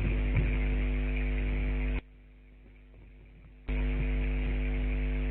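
Loud electrical mains hum with a buzzy edge and a few faint clicks. It cuts off suddenly about two seconds in and comes back just as suddenly about a second and a half later.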